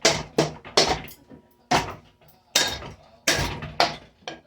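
Hampton Bay Quick Connect ceiling fan being smashed: about nine sharp, hard knocks in an uneven run, each dying away quickly.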